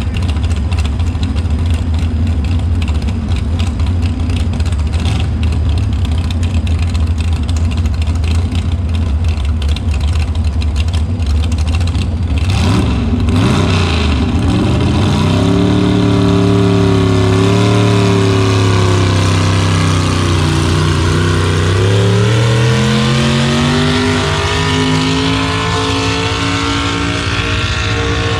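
Pulling pickup truck's engine idling steadily, then revving up about halfway through as it pulls the weight-transfer sled. The pitch climbs, holds, dips briefly and climbs again.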